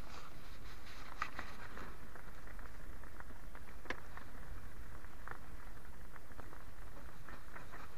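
Handling noise close to the microphone: scattered soft clicks and short rustles over a steady low rumble.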